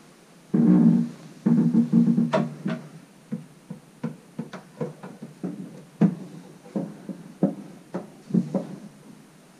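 Guitar music, a run of plucked notes.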